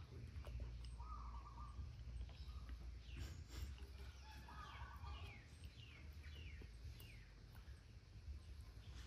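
Faint animal calls over a low steady rumble: two short steady calls, one early and one about halfway through, and a run of quick descending chirps a few seconds in.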